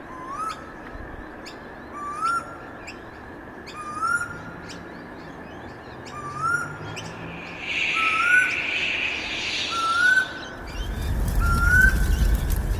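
Birdsong ambience sound effect: one bird repeats a short rising call about once a second while higher chirps sound above it. A hiss rises in the second half, and a low rumble comes in near the end.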